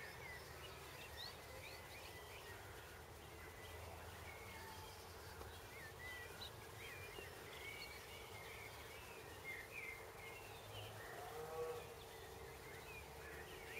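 Faint garden birdsong: several small birds chirping and twittering in short rising and falling notes, over a low steady hum, with a brief louder, lower call about eleven seconds in.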